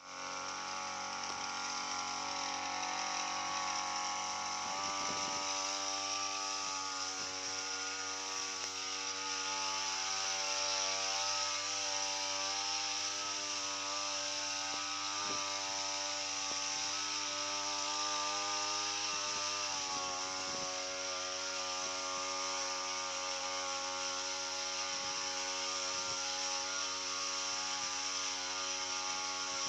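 Motorized backpack sprayer running steadily as it sprays weed killer in a fine mist, a constant hum that shifts in pitch about five seconds in and again about twenty seconds in.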